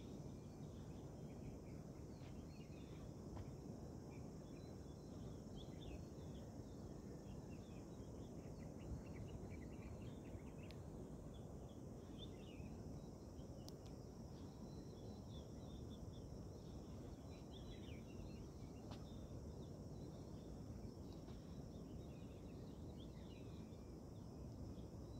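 Quiet outdoor ambience: a steady high-pitched insect drone with many short bird chirps scattered over it, on top of a low, even background rumble.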